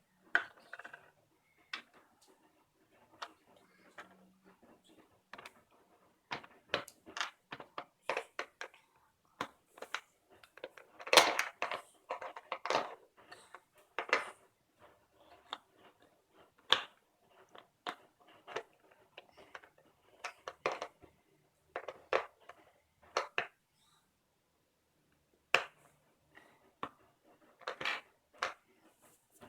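Irregular clicks and knocks of plastic Play-Doh toy pieces and tubs being handled, with a busier stretch of scraping and crunching clicks about eleven seconds in.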